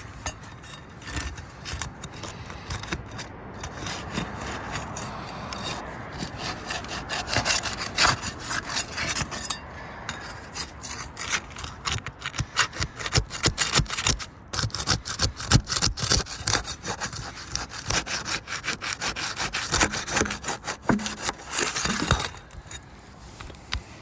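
Steel flat bar working under asphalt roof shingles to break their adhesive seal strips: rapid scraping with many short clicks and crackles. It grows busier a few seconds in and stops abruptly near the end.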